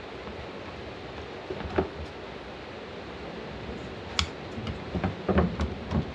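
Steady background hiss with a few light knocks and clicks from handling hard plastic parts, a sharp click a little after 4 s and a cluster of louder knocks near the end.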